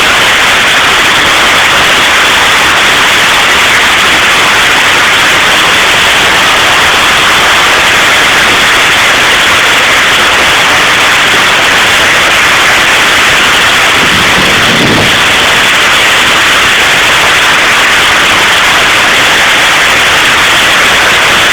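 Hail and heavy rain pelting down in a dense, steady, very loud roar of countless impacts that does not let up.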